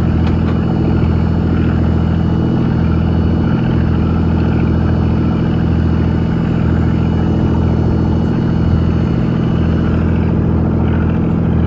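A fishing boat's engine running steadily with an even, low hum.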